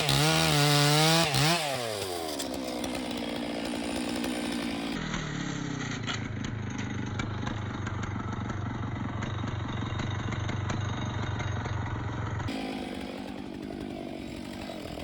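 Two-stroke chainsaw running at high revs, its pitch wavering and then falling away about a second and a half in as the throttle is released. It then settles into a steady idle.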